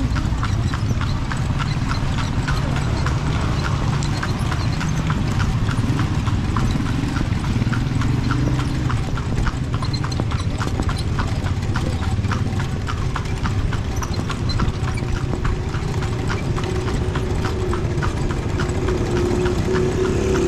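Hooves of a kalesa's carriage horse clip-clopping steadily on the street, about three strikes a second, over a low rumble.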